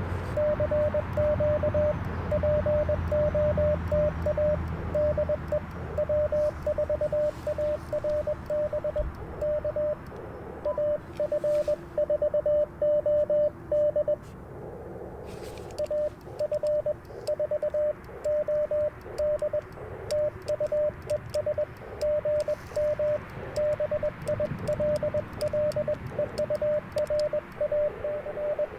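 Morse code from an Icom IC-705 transceiver: a single steady mid-pitched tone keyed on and off in dits and dahs, over radio band hiss. The keying stops for about two seconds about halfway through, leaving only the hiss. A low rumble sits under the first few seconds.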